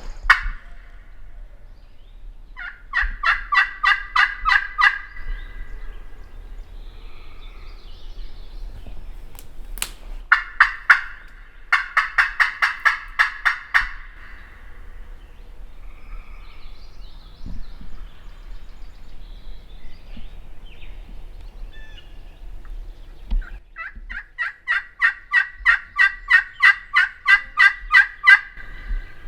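A hunter's turkey call run as three series of rapid, evenly spaced yelps, meant to make nearby gobblers answer. The first series comes about three seconds in and is short. The second comes about ten seconds in. The last and longest starts about twenty-four seconds in and builds in loudness.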